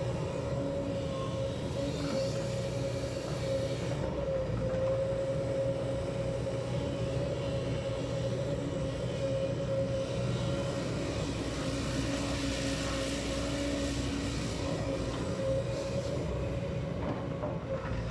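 JCB tracked excavator working, its diesel engine running steadily under load, with a constant whine over a low hum as the boom and bucket dig and swing soil.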